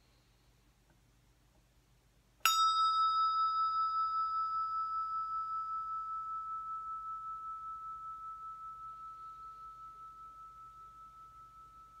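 Brass Tibetan bell struck once with a wooden striker about two and a half seconds in, then ringing with one clear high tone that slowly fades, wavering gently; its brighter upper tones die away within a few seconds.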